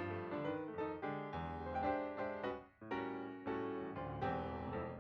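Background music played on piano, notes and chords struck one after another, with a brief break about halfway through.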